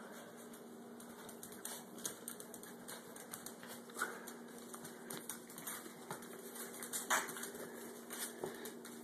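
Small puppies' claws clicking and skittering irregularly on a tiled floor, a steady low hum underneath.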